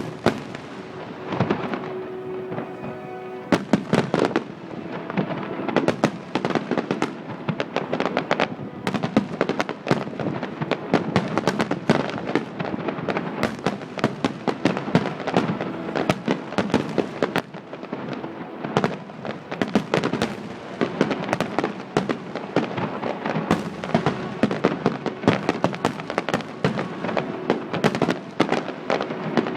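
Fireworks display: a dense, continuous barrage of bangs and crackling, thickening about four seconds in after a quieter opening.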